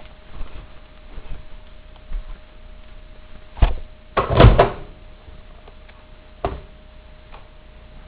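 A few knocks and thumps, the loudest a short cluster about four seconds in and a lighter one near the end, over a faint steady hum.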